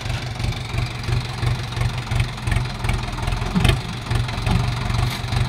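Sonalika DI 750 III tractor's diesel engine running hard under load as it pulls against a braked Swaraj 744 XT chained behind it. The engine gives a steady, low, pulsing throb.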